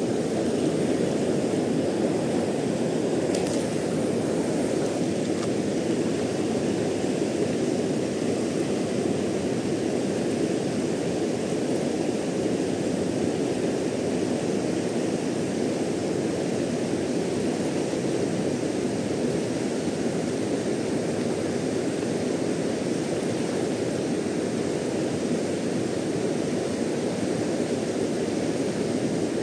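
River water rushing over rocky rapids, a steady even rush that does not change.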